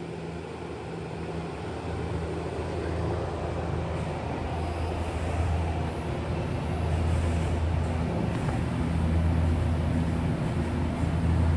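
Steady low machinery hum with a deep drone, gradually growing louder.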